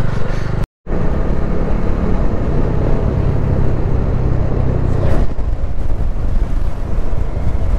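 Motorcycle engine running steadily under way, mixed with a loud rush of wind and road noise. The sound drops out completely for a moment just under a second in.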